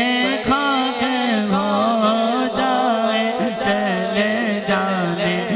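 A man singing a naat in Urdu through a microphone, a wavering, ornamented melody held on long notes, over a steady low drone.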